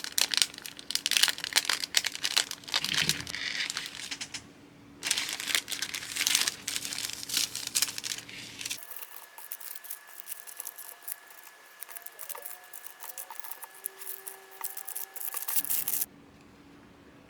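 Plastic packaging crinkling and rustling in bursts of handling, with some tearing, while orders are packed by hand. The crinkling stops about a second before the end.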